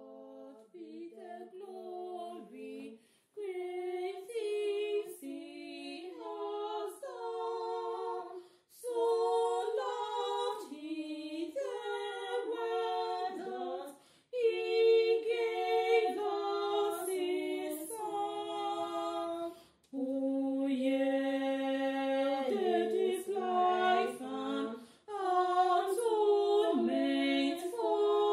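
Two women singing unaccompanied in two-part harmony, in sung phrases of about five seconds with short breaks between them.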